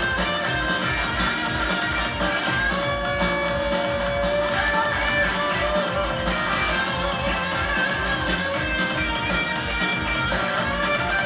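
Live band playing an instrumental passage, a guitar carrying a melodic lead line over a steady beat.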